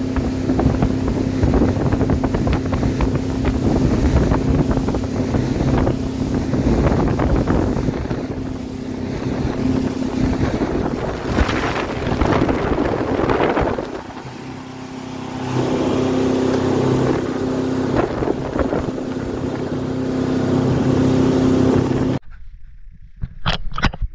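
Motorboat engine running steadily at cruising speed, under wind on the microphone and the rush of water along the hull, with a louder burst of spray about twelve seconds in. The sound cuts off suddenly near the end.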